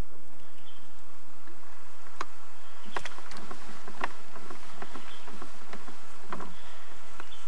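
A few light knocks and drips from a kayak and its paddle on calm water, about five in all, the sharpest around three to four seconds in.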